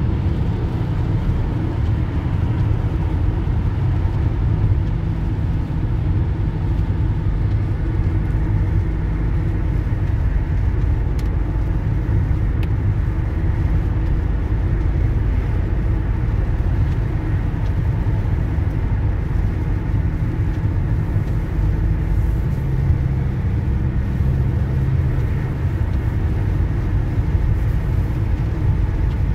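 Steady low rumble of a car driving at highway speed, heard from inside the cabin, with the engine and tyres running on a wet road.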